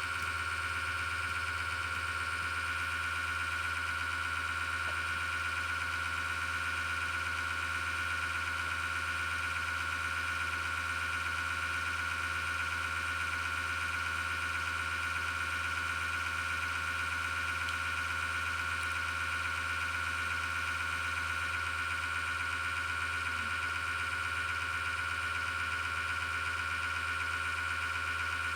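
A PC power supply fan with a bad bearing, about six years old, running with a steady grinding, whirring whine over a constant low hum. The sound is the sign of the worn fan bearing, and it sets the PC case vibrating.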